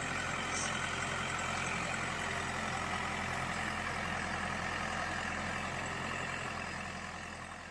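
Diesel engine of a JCB backhoe loader running steadily, fading out near the end.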